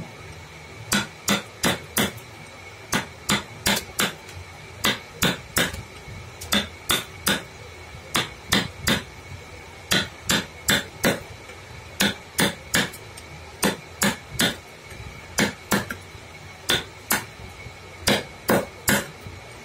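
Hammer tapping a wood-carving chisel into wood, in quick runs of about four strikes with short pauses between, repeated about a dozen times.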